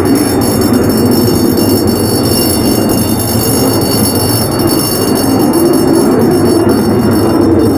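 Loud, steady roar of a Dutch F-35 Lightning II's Pratt & Whitney F135 turbofan engine at high thrust during a go-around.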